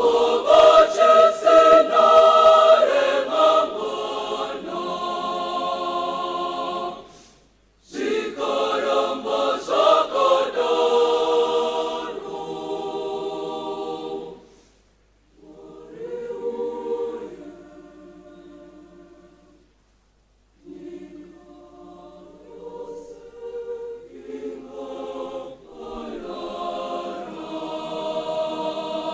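Girls' choir singing in harmony, unaccompanied. It sings in phrases with brief pauses between them, loud at first, softer through the middle, and building again near the end.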